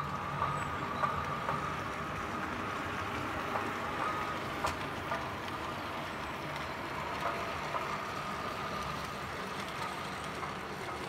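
OO gauge model train running on the layout's track: a steady hum with a faint held tone, over light rail noise and a few small clicks.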